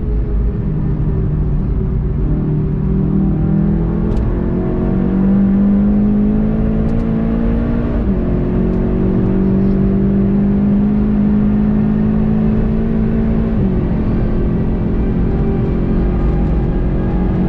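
VW Golf 7.5 GTI TCR's turbocharged four-cylinder engine pulling hard under full acceleration, its pitch climbing and then dropping sharply with quick upshifts of its dual-clutch gearbox about 8 seconds in and again near 14 seconds, over steady road and wind noise.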